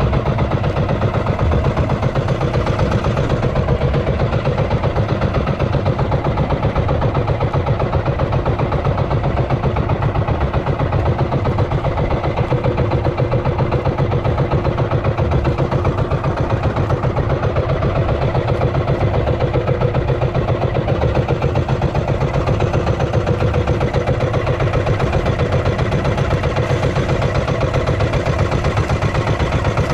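Motorized outrigger boat's engine running steadily at an even, fast pulse, pushing the boat along at trolling speed.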